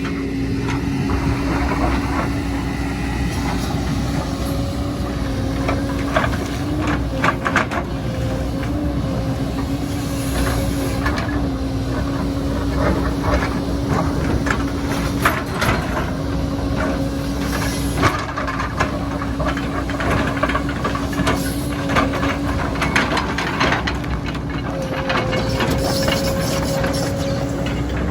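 Heavy earthmoving machine's engine running steadily under work, with repeated metallic clanks and knocks from the machine.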